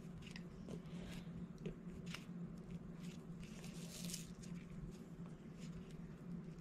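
Faint light clicks and taps of diamond-painting work, resin drills picked up and pressed onto the adhesive canvas, with a short rustle about four seconds in, over a steady low hum.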